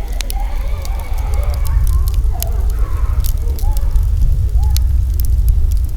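Wood campfire crackling, with many sharp pops scattered through, over a steady low rumble. Faint distant voices come through in the middle.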